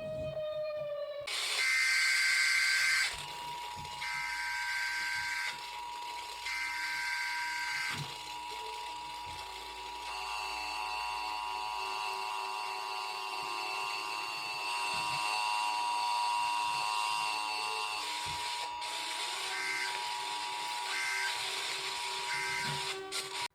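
Emergency Alert System broadcast tones: three short bursts of screeching digital SAME header data, then the long steady two-tone attention signal, then three quick end-of-message data bursts near the end, all over a hissy background.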